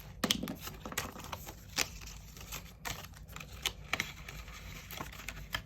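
Scattered light clicks and taps with faint rustling, about one or two a second, from hands handling paper money and a budget binder's cash envelopes.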